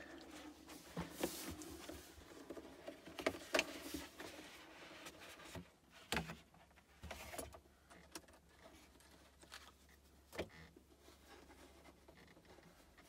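Cardboard box and packaging being handled as the lid is lifted off and the keyboard inside is touched: soft rustles and scrapes with a few sharp knocks and clicks spread through.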